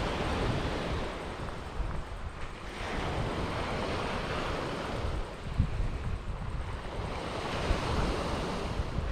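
Sea waves washing in, swelling and fading in slow surges, with wind buffeting the microphone.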